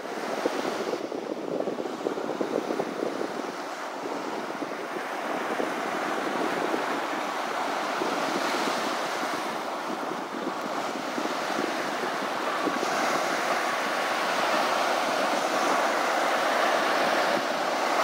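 Ocean surf washing in steadily, with wind on the microphone; the rush grows a little louder in the second half.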